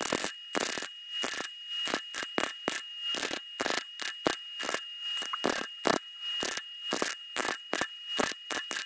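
A MIG welder runs a butt weld along the top edge of two sheet-steel pieces. It makes an irregular crackle of sharp pops, several a second, over a steady high whine. The weld is run too fast and burns a hole through the thin steel.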